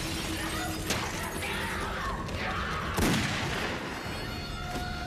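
Fight sounds from a film soundtrack: a violent struggle with a sharp crash about a second in and a heavy impact about three seconds in, mixed with strained cries and a low score underneath.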